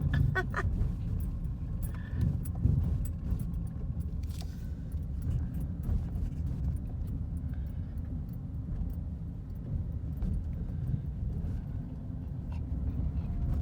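Road noise heard from inside a moving vehicle on a rough, patched road: a steady low rumble with frequent small rattles and clicks from the jolting.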